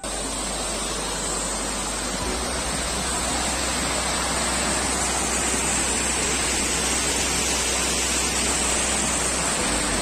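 Steady rush of water spilling over a small concrete weir and running through a rocky stream.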